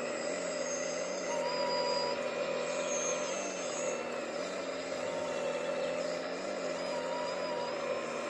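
Heavy earthmoving machinery running steadily, with thin high whines that come and go every second or two over the constant engine sound.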